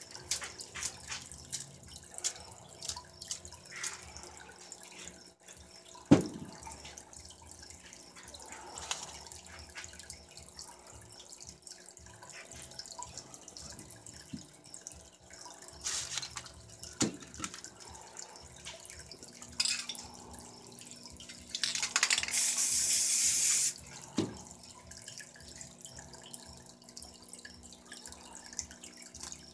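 Aerosol spray paint can hissing in short bursts and then one longer spray of about two seconds near the end, among clicks and knocks of cans and tools being handled. A single sharp knock about six seconds in is the loudest sound.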